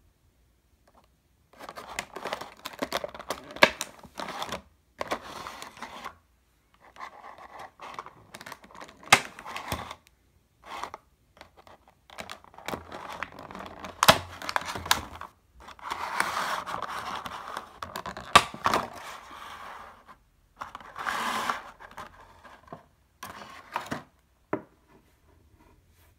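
Clear plastic packaging crinkling and crackling as it is handled and pulled away from a vinyl figure, in irregular bursts with sharp clicks and short pauses.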